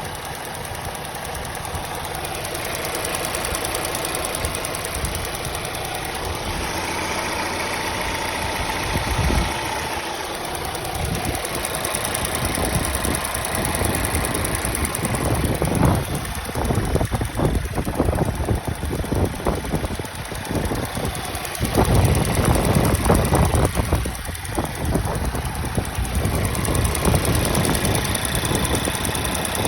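Volvo S60 T4's turbocharged four-cylinder petrol engine running with a ticking noise of unknown cause. The sound gets louder and rougher in the second half.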